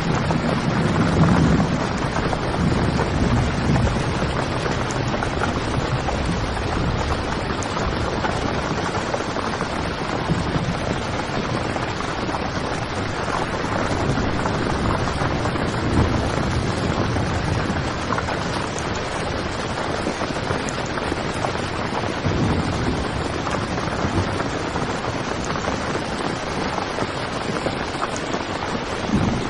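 Heavy rain pattering steadily on a tent's fabric, with low rumbles swelling now and then, loudest near the start.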